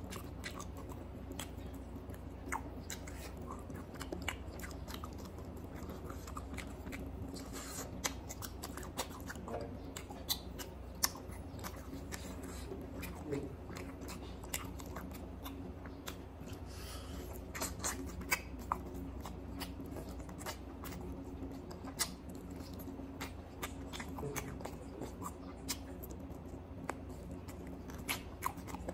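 Close-up eating sounds of chicken curry and rice eaten by hand: chewing and wet mouth smacks, with fingers squishing rice on a banana leaf. Frequent small sharp clicks over a steady low hum.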